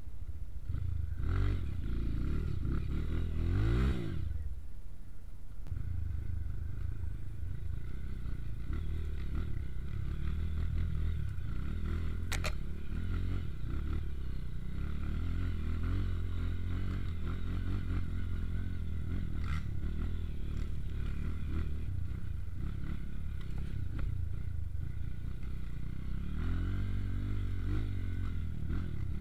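Motorcycle engine running while being ridden, revving up to a peak about four seconds in and briefly dropping off, then running steadily.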